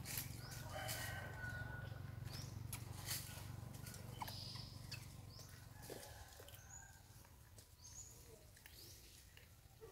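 Faint outdoor ambience: scattered soft clicks and rustles with a few brief high chirps and squeaks.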